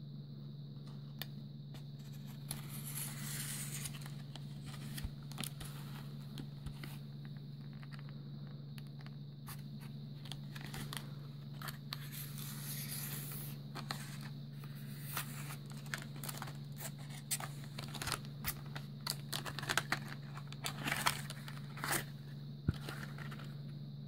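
Hobby knife slicing and scraping through the plastic blister packaging of a long-reach butane lighter, with crinkling and tearing plastic and card and scattered clicks and snaps that grow louder and more frequent in the last few seconds as the lighter is pulled free. A steady low hum runs underneath.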